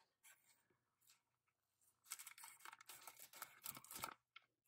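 Scissors cutting through a thin plastic foil minifigure bag, the film crinkling and crackling in a quick run of snips that starts about two seconds in and stops just before the end.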